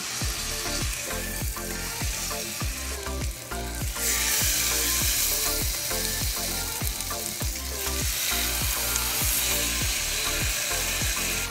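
Thin-sliced chicken breasts sizzling as they sauté in a pan of olive oil and melted butter; the sizzle gets louder about four seconds in.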